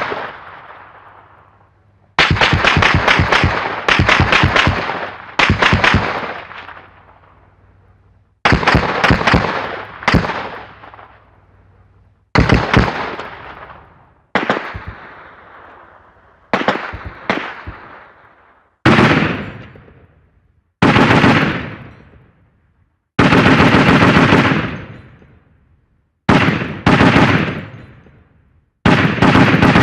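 Short bursts of rapid automatic gunfire, about fifteen in all, each around a second of quick shots trailing off into echo, with brief pauses between bursts.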